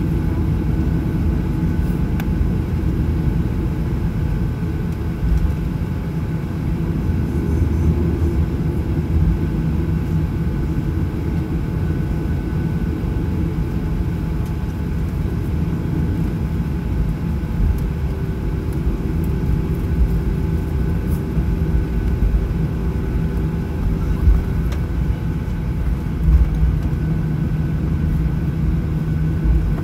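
Cabin noise of a Boeing 737-900ER on the ground: its CFM56-7B engines running at idle under a steady low rumble, with a few faint steady tones on top.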